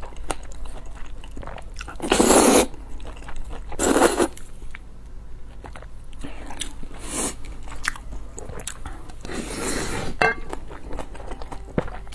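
Close-miked eating: a person slurping saucy glass noodles in loud bursts about two and four seconds in and again around seven and nine seconds, with wet chewing and small mouth clicks between.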